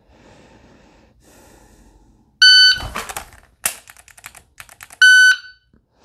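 AMG Lab Commander shot timer gives its start beep, then, after a thump and a quick string of dry-fire trigger clicks from the pistol, its par-time beep sounds 2.6 seconds after the start.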